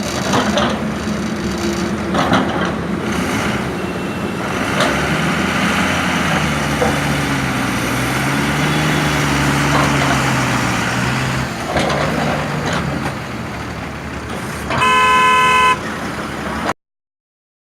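Sany SY210 excavator's diesel engine working, its pitch rising and falling under load, with occasional knocks. Near the end a vehicle horn sounds once for about a second.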